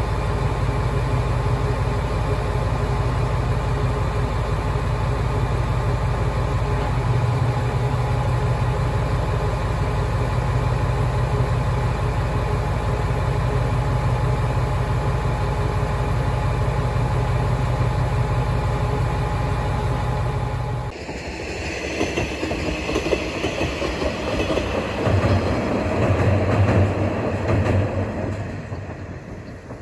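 A KiHa 120 diesel railcar idling at a station platform, its engine giving a steady low hum. About 21 seconds in this gives way to a diesel railcar running along the line, engine and wheels on the rails growing louder as it approaches, then fading near the end.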